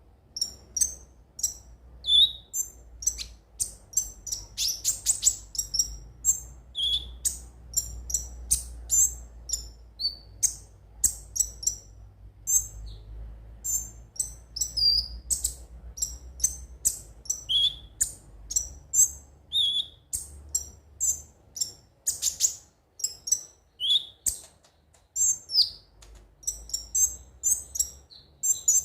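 Crimson sunbird (kolibri ninja) singing: a rapid, continuous run of high, sharp chirps and twitters, broken now and then by a lower whistled note.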